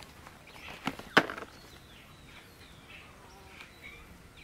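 Two sharp knocks about a third of a second apart as steamed taro-leaf rolls are handled on a bamboo winnowing tray, followed by faint bird chirps.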